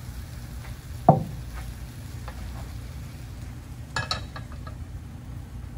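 Metal pans knocked and set down on a portable butane stove: one heavy clunk about a second in, then a short cluster of sharp metallic clicks and clatter about four seconds in, over a low steady hum.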